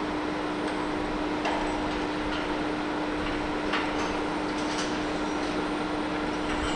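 Steady machinery drone with a constant hum, broken by a few faint metallic clinks.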